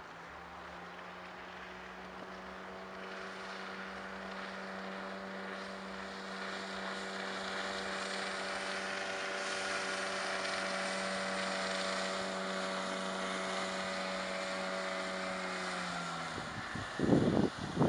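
HDX T9.8 BMS two-stroke outboard on an inflatable boat running at a steady high speed as it passes by, a steady engine drone slowly growing louder, its pitch dropping slightly as it goes past. A few loud bumps near the end.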